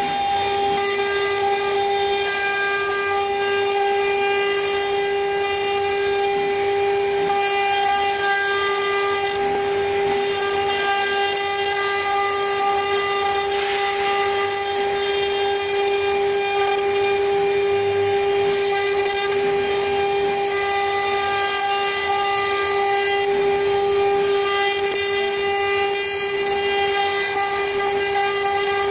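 CNC router engraving letters into a wood panel: the spindle's steady high whine, with the rasp of the bit cutting the wood underneath it.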